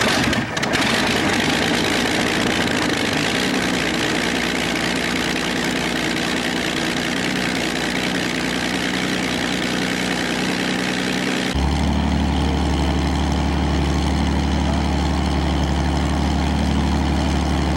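Allison V-1710 V-12 aircraft engine of a vintage unlimited hydroplane running on its trailer. About eleven seconds in the sound cuts abruptly to another hydroplane V-12 running with a deeper, steady rumble.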